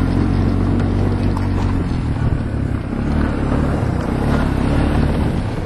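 Four-wheeler (ATV) engine running at a steady pace, a continuous low motor drone that shifts a little in speed.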